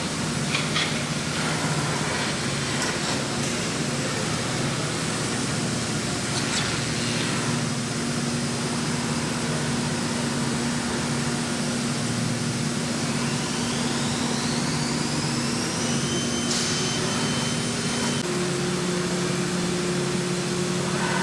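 CNC gantry router running steadily with a low hum and noise. Partway through, a whine rises in pitch, typical of the spindle speeding up. Near the end the low hum changes pitch.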